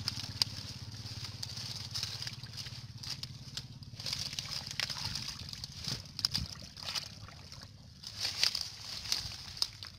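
Hands squelching and sloshing through wet mud and shallow muddy water, with irregular wet smacks and clicks. A faint low hum fades out in the first few seconds.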